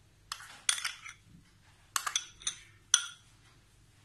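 A spoon clinking and scraping against glass bowls as cream cheese is scooped out of a small glass bowl into a glass mixing bowl. It makes about six sharp clinks, each with a brief ring, and the loudest comes about three seconds in.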